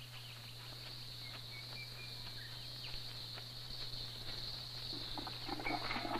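Outdoor bush ambience: a steady, high-pitched drone of insects, with a few short bird chirps and scattered clicks and rustles that grow busier near the end, over a low steady hum.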